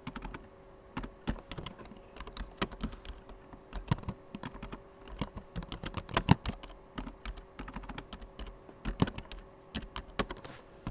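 Typing on a computer keyboard: irregular key clicks, one keystroke after another.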